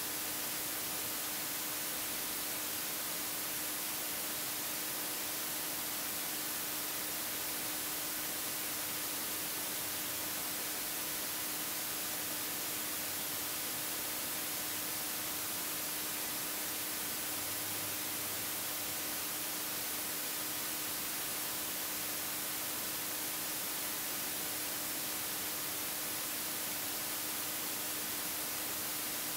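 Corded jigsaw running steadily as it cuts through a plywood wall panel: a constant hiss with a faint steady hum underneath.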